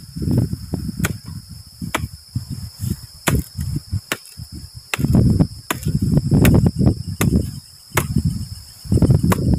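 Machete strikes cutting through dry grass and bamboo, sharp chops about once a second. Loud gusts of wind buffet the microphone, over a steady high drone of crickets.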